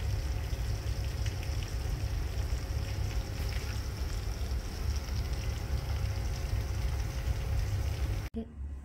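Gas stove burner running under a covered pot of cooking rice and chicken: a steady low rumble with a hiss and faint crackling of the contents steaming inside. It cuts off suddenly near the end.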